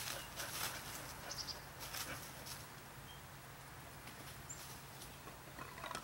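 Bark River Bravo 1.5 knife blade shaving and scraping wood in short, faint, irregular strokes, most of them in the first half, as a bow-drill piece is carved.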